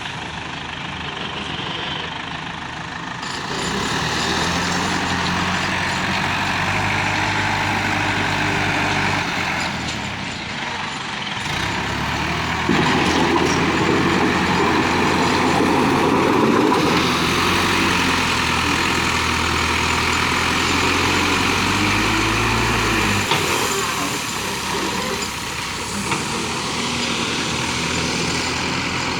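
JCB 3DX backhoe loader's diesel engine working, its engine note stepping up a few seconds in, loudest through the middle while under load, then dropping back about three-quarters of the way through.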